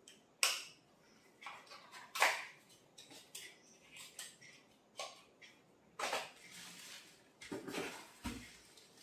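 Clicks and knocks of small plastic cosmetic containers being handled and set down, several separate sharp taps. Near the end comes rustling and a dull thump as things are rummaged in a cardboard box.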